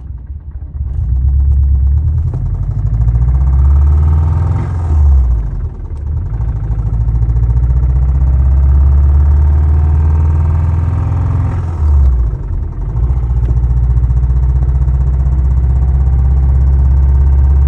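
Subaru EJ205 turbocharged flat-four engine under way through the gears with a knocking chatter. The engine note breaks twice, about five and twelve seconds in, as it shifts up. The knock developed and worsened over about a day and a half; the owner first took it for an exhaust manifold leak.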